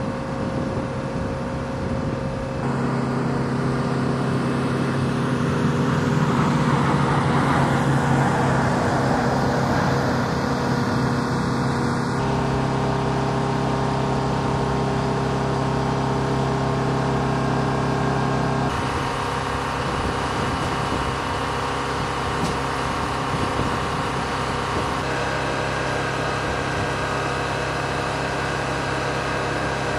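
Turboprop military transport aircraft engines and propellers droning steadily. The sound swells with a rushing noise as one passes low, about six to ten seconds in. The tone shifts abruptly a few times.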